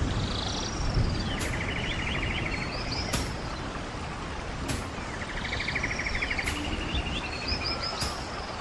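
Rainforest ambience: a steady hiss of rain with birds calling over it, a rapid trill heard twice and short chirps between. Faint clicks come about every second and a half.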